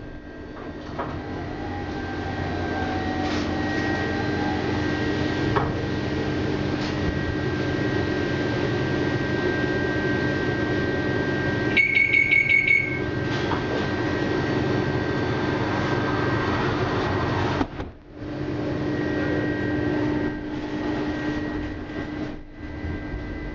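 Tatra KT4 tram running, a steady drone with a constant high whine heard from inside the car. About halfway through, a rapid string of high beeps lasting about a second: the door warning signal.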